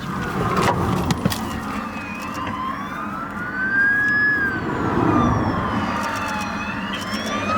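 A siren wailing, its pitch rising and falling slowly, about one sweep every four to five seconds, over a steady low rumble.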